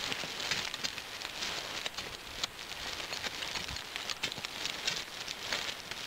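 Loose soil and stones pouring and pattering down a hand-dug earth bank as it is cut away with hoes: a steady hiss full of many small sharp clicks.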